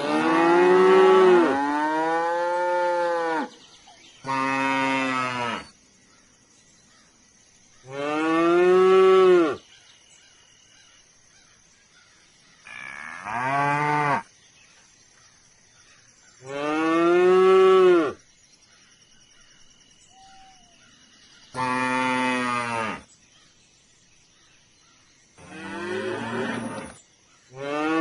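Cattle mooing: about eight long moos a few seconds apart, each lasting one and a half to three seconds, with the pitch rising and then falling within each call.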